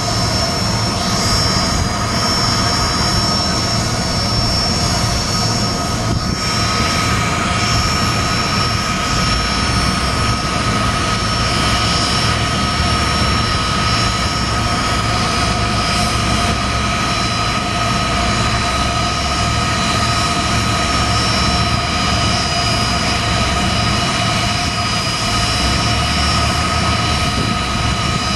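Airbus A330-223F's Pratt & Whitney PW4000 turbofans running at ground idle after engine start: a steady jet whine over a rumble, with several high steady tones that fill out about six seconds in.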